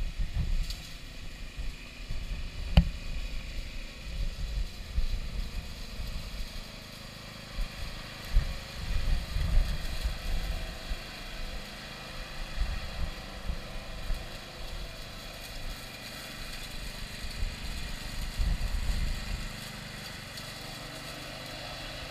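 Radio-controlled walk-behind lawn mower running as it drives across a lawn, with uneven low buffeting through it and a single sharp click about three seconds in.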